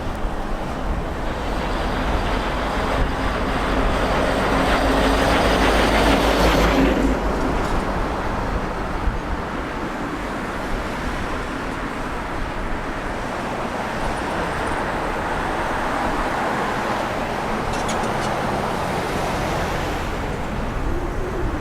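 Aircraft engine noise mixed with wind on the microphone. It is louder for the first several seconds with a faint low hum, then drops suddenly to a lower, steady noise.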